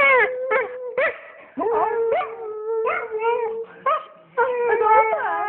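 Siberian husky howling and 'talking': long steady howls, broken by short rising yips and whines about a second apart.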